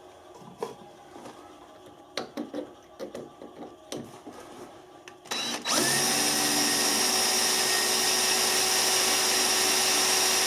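Handheld power drill running at a steady speed, its bit drilling into a tough metal part, starting a little over halfway in after a few light handling knocks and clicks.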